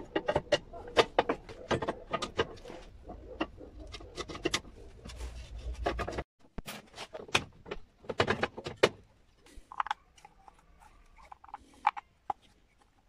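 Metal clicks and clatter of a lawn mower's steel wheel-height adjuster linkage being handled and fitted to the deck: a quick string of sharp knocks, thinning to a few faint ticks after about nine seconds.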